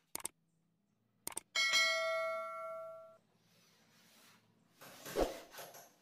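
Two quick clicks, then a bright bell ding that rings out and fades over about a second and a half: a subscribe-button notification sound effect. A single thump follows near the end.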